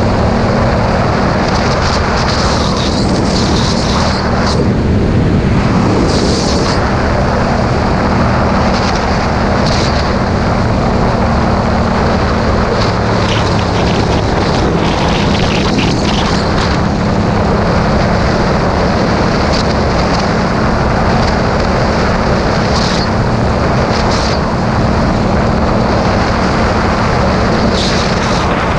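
Motorcycle engine running at a steady cruising speed under heavy wind rush on the microphone.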